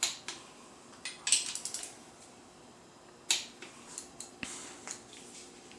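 Sharp metallic clicks and short clinking rattles of a wrench and socket working the main bearing cap studs on an S52 engine block as they are torqued down. The loudest clicks come at the start, about a second and a half in and about three seconds in.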